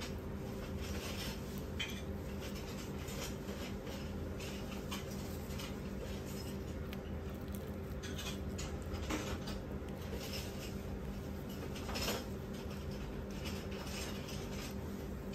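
Small scrapes and taps of a metal spoon scooping dumpling filling from a bowl, with soft rustling of disposable gloves folding and pinching dumpling wrappers, over a steady low hum.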